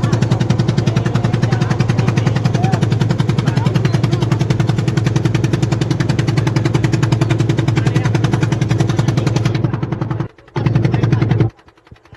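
Small engine running with a fast, even putter. The sound drops out briefly about ten seconds in and again near the end.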